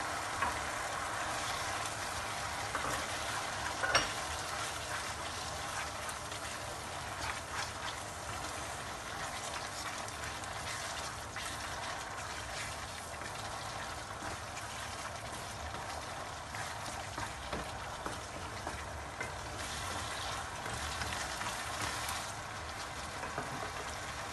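Tomato and onion sauce with tomato paste and green chilies frying steadily in a nonstick pan while a wooden spoon stirs it, with small scrapes and knocks of the spoon and one sharper knock about four seconds in.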